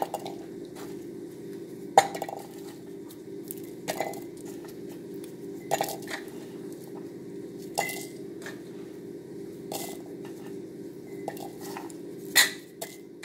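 Garlic cloves dropped one at a time into an empty glass jar, each landing with a short clink on the glass, about eight knocks roughly two seconds apart; the loudest comes near the end.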